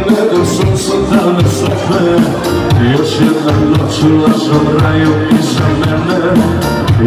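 A live band plays a pop song: a male singer sings into a microphone over keyboards and drums with a steady beat.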